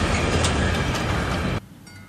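Freight train's covered hopper wagons rolling past on the rails, a loud steady rumble with a few sharp clicks, which cuts off abruptly about one and a half seconds in. After it, a quieter background with faint high ringing tones.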